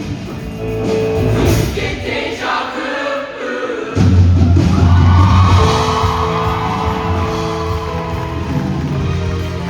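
High school show choir singing with accompaniment. The low end drops out briefly, and about four seconds in a strong bass comes back in and the music gets louder.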